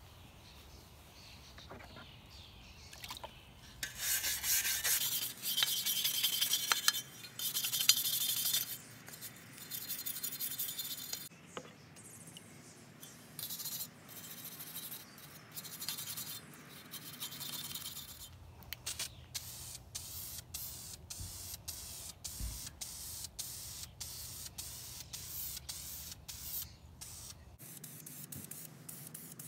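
Wire brush scrubbing rust off a steel shovel blade: long rasping strokes, then many short quick scrapes in the second half.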